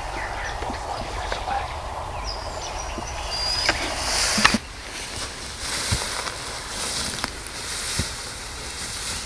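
Rustling of tall grass and camouflage clothing as a hunter creeps up a grassy slope, with a few light knocks, the loudest about four and a half seconds in.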